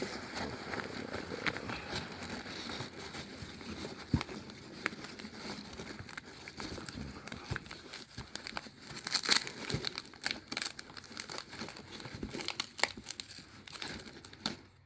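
Packing material, including packing peanuts, being handled and rummaged through in an opened box: continuous rustling and crinkling with many small sharp crackles, thickest a little past the middle.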